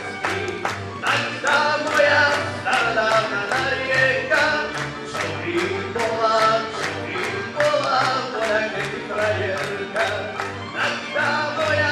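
Slovak folk ensemble playing an instrumental passage: recorders carry the melody over a pulsing bass and a quick, even beat.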